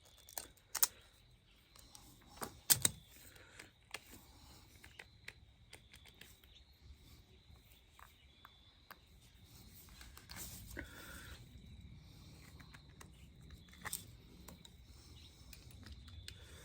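Scattered sharp clicks and taps from hands working hand tools and stripped wire on a power cable, with the sharpest snaps about a second and three seconds in and another near the end.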